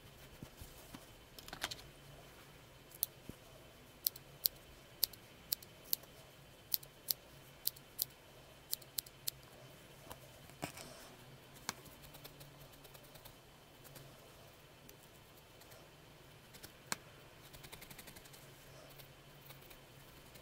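Small scissors snipping stray wool fibres off a needle-felted figure: a run of about a dozen sharp snips, roughly two a second, a few seconds in, followed by a few single clicks and faint handling of the wool.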